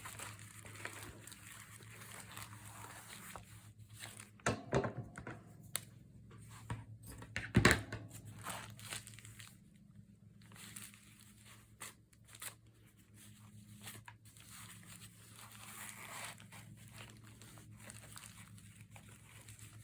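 Paper crinkling and rustling as a squishy notebook made of recycled Amazon envelopes is handled and tied closed, with louder crinkles about four to five seconds in and again near eight seconds in, over a faint steady low hum.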